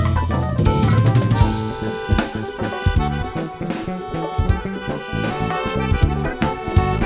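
A live band playing a busy drum-kit passage, snare and bass drum to the fore, over electric bass and keyboard.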